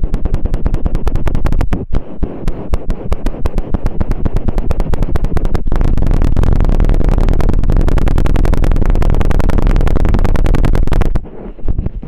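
Ear-scraping stick worked rapidly against a microphone ear in the ASMR 'helicopter' technique: a loud, fast, even flutter of scraping strokes that stops about a second before the end.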